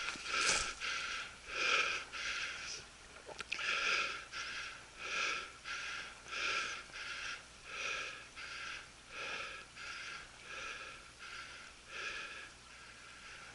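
A person breathing hard and fast, in and out close to the microphone, with a full breath about every second and a bit.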